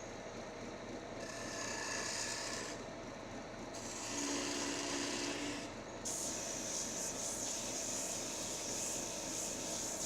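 Wood lathe running while a tool or abrasive works the spinning wooden stretcher, giving a rasping scrape. The scrape comes and goes in spells and is strongest from about halfway through.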